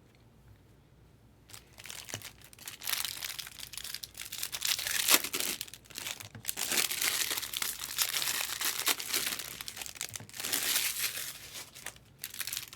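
Foil wrappers of baseball card packs crinkling and tearing as they are opened and handled, starting about a second and a half in and going on in uneven bursts.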